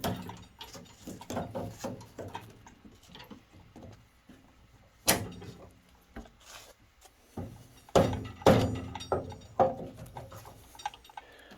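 Irregular knocks and clunks from a steel rolling tool cart being handled and moved, with the sharpest knocks about five and eight seconds in.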